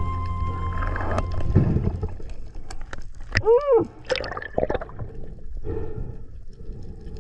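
Underwater gurgling and bubbling picked up by a spearfisher's camera while diving, with scattered clicks. About three and a half seconds in there is a short pitched sound that rises and then falls.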